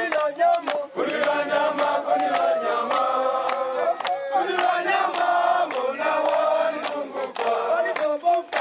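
A group of voices singing or chanting together over a steady beat of sharp percussive strikes, about two or three a second.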